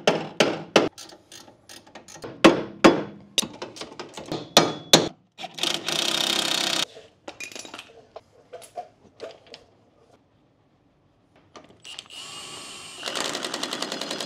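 Metal clinks and clanks of tools and parts, with a short power-tool burst about six seconds in. Near the end a Milwaukee cordless impact wrench spins the front drive-axle nut onto the hub, getting louder with fast, even hammering as it tightens.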